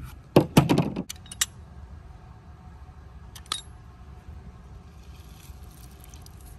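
A knife cutting through a lime onto a wooden cutting board, a quick cluster of knocks about half a second to a second in. Then light metallic clinks from a hand-held aluminium citrus press being handled and squeezed shut, once about a second and a half in and again about three and a half seconds in, with a low steady wind rumble on the microphone throughout.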